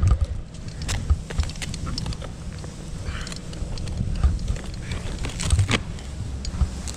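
Irregular knocks, clicks and scrapes of a tree climber's gear and boots against a palm trunk, over a constant low rumble.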